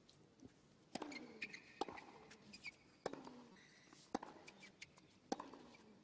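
A tennis ball bounced on a hard court before a serve: about five sharp bounces roughly a second apart, each with a short ringing echo.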